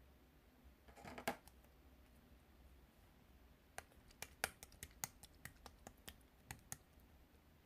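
Slime being pressed and poked, giving a faint short crackle about a second in, then a run of a dozen or so sharp clicking pops.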